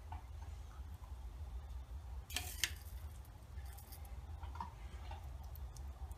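A couple of sharp clicks about two and a half seconds in, and a fainter one later: a metal spoon knocking against a small ceramic crock pot while scooping lead birdshot out of melted wax. A steady low hum sits underneath.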